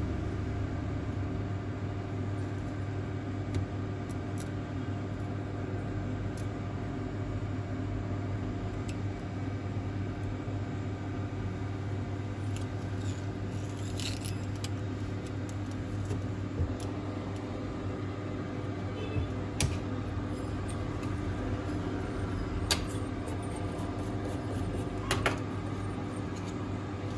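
Steady hum of a phone screen-separator machine, with a few short sharp clicks scattered through it as a cutting wire is worked under a cracked Samsung Galaxy S9 front glass.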